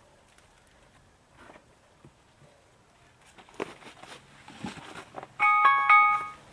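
Faint rustling and small knocks of branches and boards being handled, then about five seconds in a phone alarm goes off loudly: a chiming tune of several notes that stops just before the end. It is the challenge timer going off, meaning the time is up.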